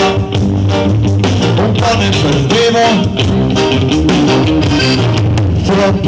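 Live rock band playing: electric guitar, bass guitar and a drum kit keeping a steady beat.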